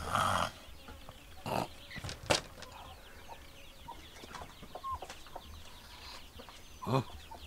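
Chickens clucking faintly now and then. There is a short noisy rattle right at the start and a couple of sharp clicks a second or two in.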